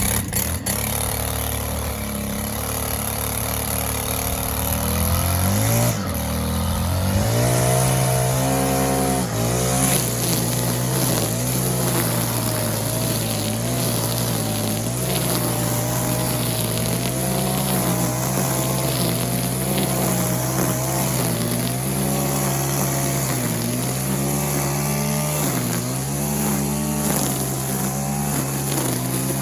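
An engine running, speeding up about six seconds in and then holding at a higher speed, with small rises and falls in pitch.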